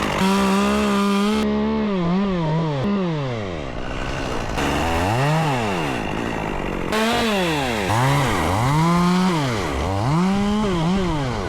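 Two-stroke chainsaw running at full throttle, then revving down and back up over and over. Its pitch keeps dropping and climbing as the throttle is worked while the climber makes a hinge cut.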